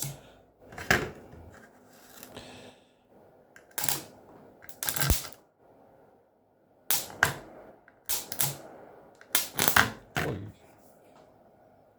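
About a dozen sharp, irregular snaps and pops, several in quick pairs, from a broadband router's circuit board as more power is forced into it: arcing and components failing under overvoltage.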